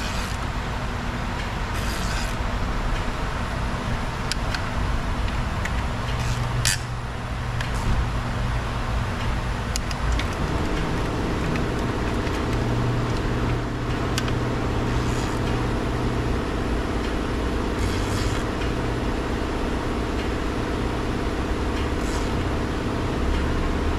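Steady low machine hum, joined by a second steady drone about ten seconds in, with scattered clicks and short rattles of a hand ratchet working the engine's intake manifold bolts.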